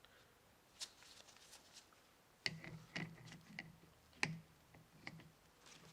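Faint clicks and taps of hand tools working on a brake caliper, with a few sharper knocks between about two and a half and four and a half seconds in.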